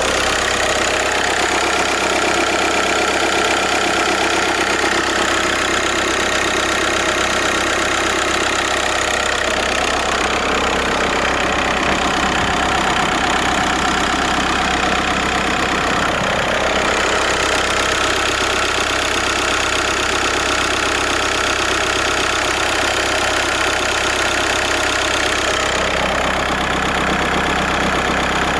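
Volkswagen Golf 5's 1.9 TDI four-cylinder turbodiesel idling steadily, its tone shifting slightly a few times.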